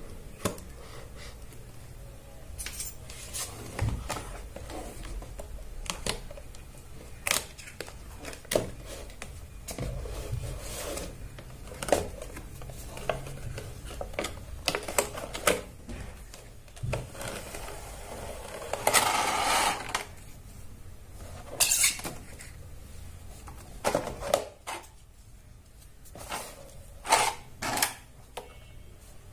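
Cardboard packaging being handled and opened: scattered light taps and clicks of the card flaps, with a longer rustling scrape about two-thirds of the way through. A steady low hum runs underneath.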